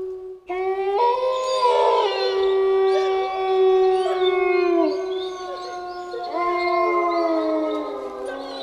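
Several wolves howling together in a chorus: long, overlapping held howls at different pitches, some sliding downward, with a fresh howl joining about two-thirds of the way through.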